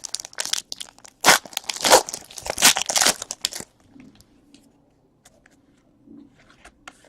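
Trading-card packaging being crinkled and torn open in a run of short rustling rips. It stops about three and a half seconds in, and a few faint ticks follow.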